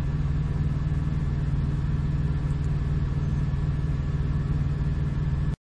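Semi truck's diesel engine heard from inside the cab, a steady low rumble at an even pace, which cuts off abruptly near the end.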